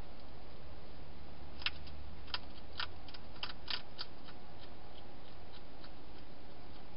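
Wild hedgehog chewing food, an irregular run of sharp crunching clicks from about a second and a half in to about four seconds in, with fainter ticks on either side.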